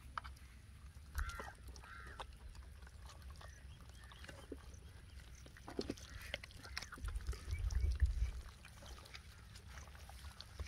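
Wet squishing and clicking of bare hands working a thick flour-and-egg batter into raw whole chickens on a metal plate. Two short animal calls sound about a second in, and a low rumble swells for a second or so past the middle.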